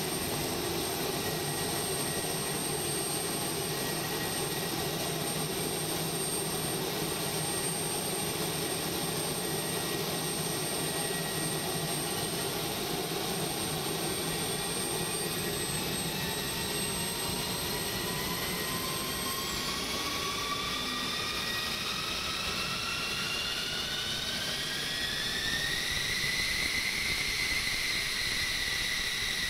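F-16 jet engine running, with a turbine whine that climbs in pitch over the second half and levels off near the end as the engine spools up.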